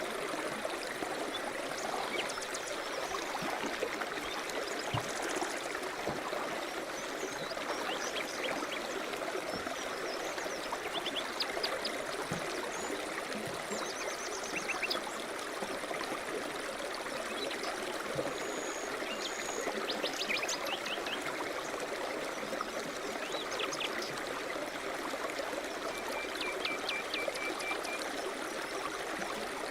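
River rapids: water rushing steadily over rocks. Birds chirp and trill now and then over it, in short high calls and quick runs of notes, with the most near the middle and near the end.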